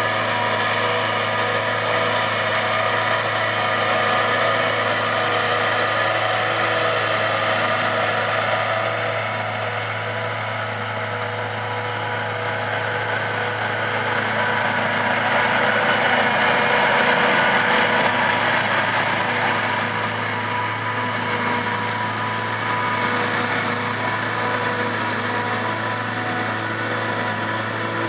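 Claas Jaguar 960 self-propelled forage harvester running under load as it chops standing triticale, its engine and chopping gear giving a steady drone with several held whining tones that swell slightly about two-thirds of the way through.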